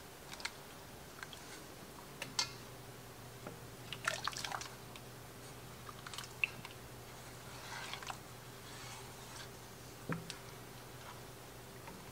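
Spoon stirring a thick cheese sauce in an enamelled pot: soft squishy stirring, with scattered light clicks and scrapes of the spoon against the pot. A faint steady hum comes in about two seconds in.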